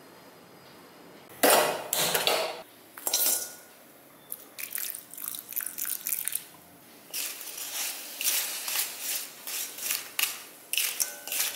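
A few loud clatters of kitchen utensils, then a spatula scraping around a pan in quick repeated strokes as jaggery and a little water are stirred to melt it.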